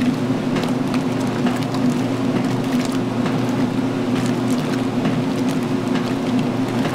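Magic Chef 20-pound washer in its wash stage: a steady motor hum with water sloshing and splashing in the tub.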